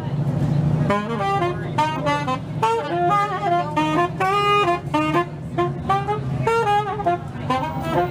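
Live blues band playing, a lead melody instrument running through quick phrases of short notes over a steady low accompaniment.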